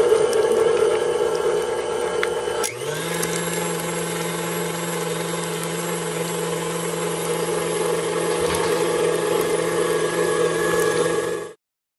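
KitchenAid stand mixer motor running steadily while beating butter and shortening together. About three seconds in there is a click and the whine steps up to a higher pitch as the mixer is switched to a faster speed, and the sound stops abruptly near the end.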